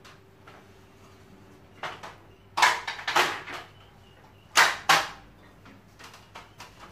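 Sumika SKM404 folding aluminium ladder being repositioned by hand: its metal sections clack and its hinge joints knock. There is a burst of loud clacks about two and a half to three and a half seconds in, two more sharp ones around five seconds, and a few lighter knocks near the end.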